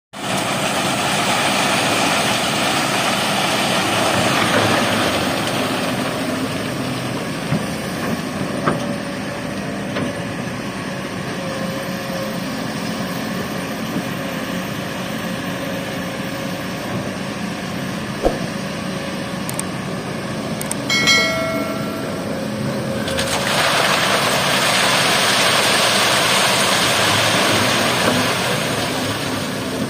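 Kobelco crawler excavator's diesel engine running throughout. In the first few seconds, and again for the last several, there is a rush of sand and gravel pouring from the bucket through a mesh screening frame. A steady whine runs through the middle stretch.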